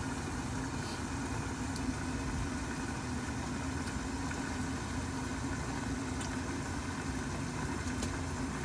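Steady low mechanical hum of a running kitchen appliance, with a few faint ticks.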